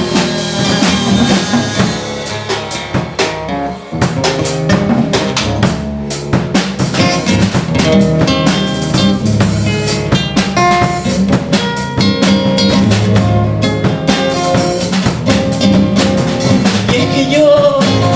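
Live band playing an instrumental stretch between sung verses: a drum kit playing busy snare and bass-drum patterns over a strummed acoustic guitar, with a brief drop in the drumming about four seconds in.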